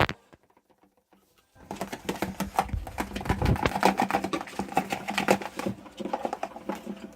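Slime mixture being stirred and squished in a pot, a fast run of irregular sticky clicks and smacks that starts about a second and a half in. Boric-acid water has just been added, and the glue is starting to set into slime.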